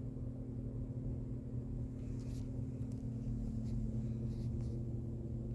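Ceiling fan running with a steady low motor hum, with a few faint ticks.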